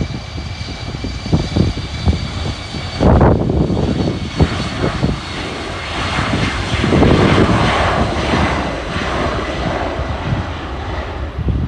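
Airliner engine noise from an aircraft passing: a steady high whine that fades about three seconds in, then a broad engine noise that swells and eases off.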